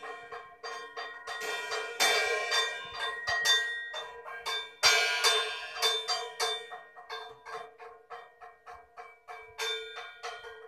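Drum-kit cymbal struck repeatedly with drumsticks at an uneven pace, a few taps a second, ringing like a bell, with harder hits about two and five seconds in.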